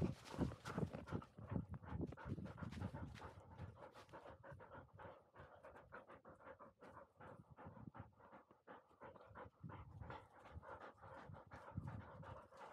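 Labrador retriever panting fast and evenly, winded from sprinting up a slope, heard very close from a camera worn on the dog. Heavier thumps mix in during the first couple of seconds while it is still moving, then the panting settles into a steadier rhythm.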